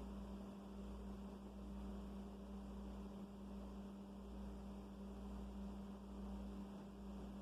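Steady low electrical hum with a faint background hiss.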